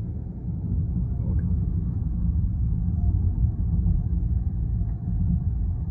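Steady low rumble of a car in motion: road and wind noise heard while driving.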